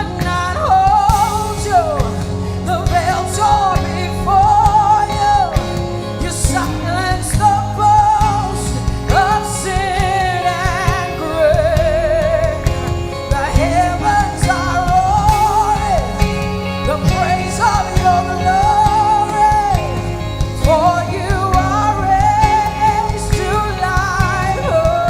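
Live worship band playing, with a lead singer holding long notes with vibrato and sung runs over the band.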